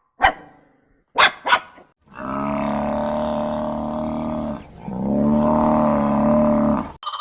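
A dog barks three times, once near the start and twice in quick succession about a second later. Then come two long, low, steady calls, each about two seconds long, from a large animal.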